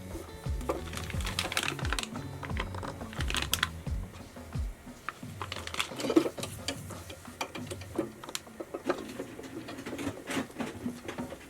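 Irregular light clicks and taps of small hard objects, over background music whose bass line fades out about halfway.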